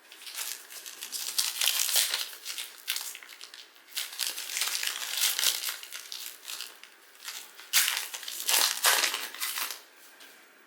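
Plastic wrapper of a trading-card pack crinkling and crumpling as it is torn open and handled, in three bouts that go quieter near the end.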